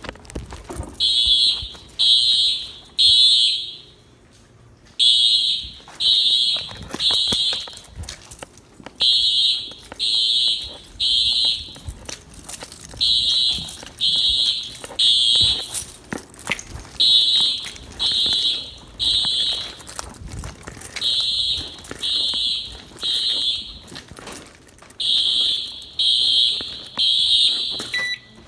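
Simplex fire alarm horns sounding the temporal-3 evacuation code during a system test: three short, loud, high-pitched blasts, a pause, then three more, repeating steadily.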